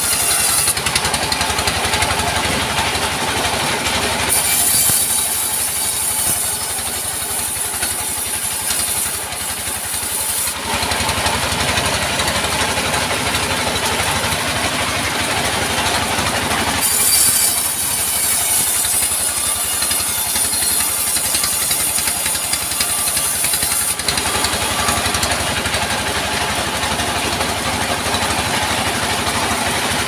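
Diesel engine running steadily to drive a sawmill band saw as it cuts through a log. The sawing sound changes in character every several seconds as the log passes the blade.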